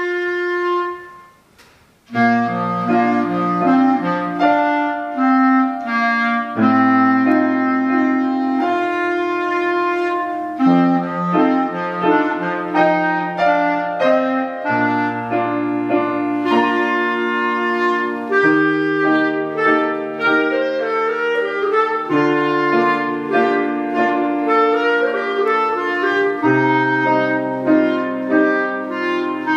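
Clarinet playing a melody with piano accompaniment. A held note dies away in the first second or so, there is a brief pause, and about two seconds in the clarinet and the piano chords resume together.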